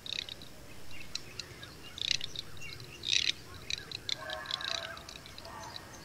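Garganey ducks calling: a string of short, high calls, the loudest about two and three seconds in, joined by lower-pitched calls a little after four seconds.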